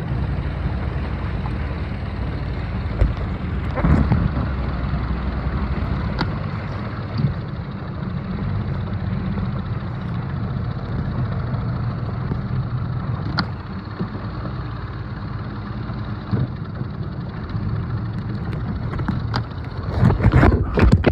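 A small fishing boat's motor running steadily under way, with a constant low rumble and wind and water noise, and a few sharp knocks. There is a louder rush near the end.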